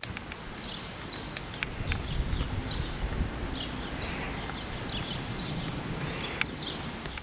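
Small birds chirping over and over, short high calls over a steady low rumble of outdoor background noise, with a few sharp clicks.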